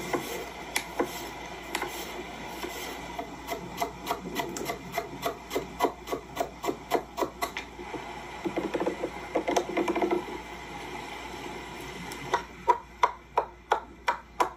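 Food preparation on a wooden board: rhythmic knocking strokes, about three a second, with a stretch of scraping in the middle, the strokes turning louder and more even near the end.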